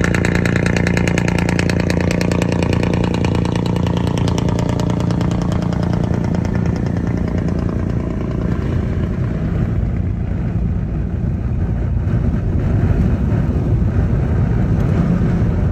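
Mercedes-Benz Actros MP4 truck with an open-pipe exhaust, its diesel engine running with a loud, steady drone close alongside. From about halfway the engine note fades under road and wind noise heard from inside a passing car.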